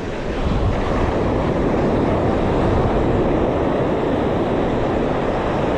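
Steady wash of surf with wind buffeting the microphone.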